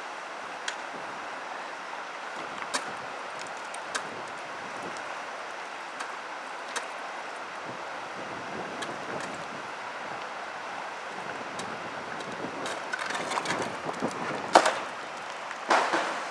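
Steady rushing outdoor noise with scattered sharp knocks, which grow more frequent toward the end, where two louder strikes stand out.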